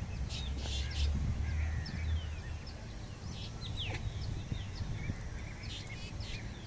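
Birds chirping and calling in short, scattered notes and quick falling whistles, with a low hum for the first two seconds or so.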